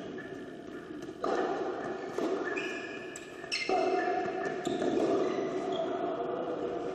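Tennis rally in an echoing indoor hall: racket strikes on the ball about once a second, each ringing on in the hall.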